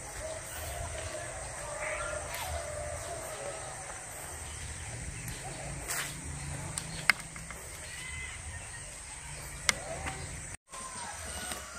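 Countryside morning ambience: scattered bird calls over a low rumble of wind and handling noise on a walking phone's microphone, with two sharp clicks in the second half.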